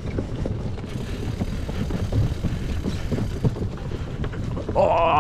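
Wind rushing over the microphone of a camera carried on a moving bicycle: a steady, low, buffeting rumble.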